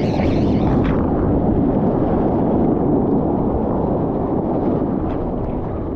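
Loud, steady rushing roar of breaking ocean surf mixed with wind buffeting the microphone.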